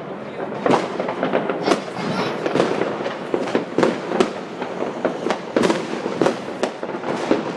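Fireworks and firecrackers going off in a dense, continuous barrage: sharp bangs about twice a second over constant crackling.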